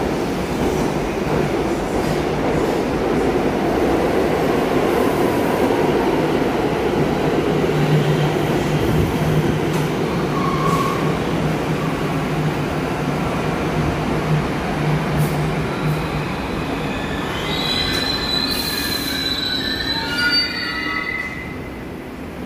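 New York City subway R62A trains moving through a station: a steady rumble of a train pulling out while another comes in. Near the end comes a high, several-toned wheel squeal for about four seconds as the arriving train slows to a stop.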